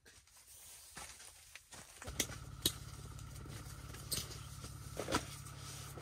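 Sleeping bags and foam sleeping pads being handled on a tent floor: rustling with a few sharp clicks and knocks. A steady low hum starts suddenly about two seconds in.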